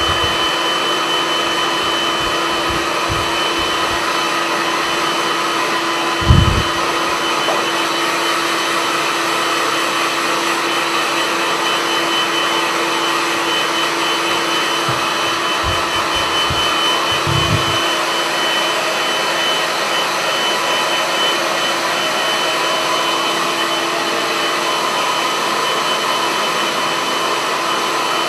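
Handheld hair dryer running steadily as it blows wet hair dry, with a constant hum and a thin high whine over its airflow noise. A low thump about six seconds in, and a few softer knocks later.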